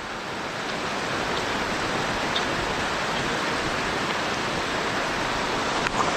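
Steady rush of mountain river water flowing over rocks, an even hiss, with a small click near the end.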